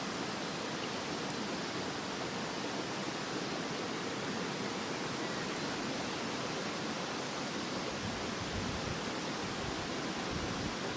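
Steady rushing of a river or stream. About two-thirds of the way through, a low rumble of wind on the microphone joins it.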